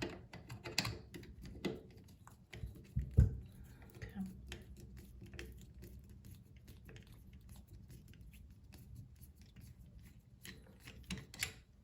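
Screwdriver working a screw out of a Moen bathroom faucet: faint, irregular small metal clicks and scrapes, with a few louder knocks in the first few seconds.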